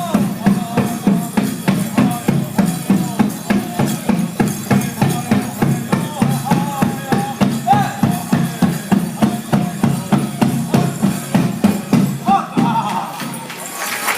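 Native American dance song: a drum beaten in a steady, even beat of about three strokes a second under voices singing. The drumming stops about 12 s in.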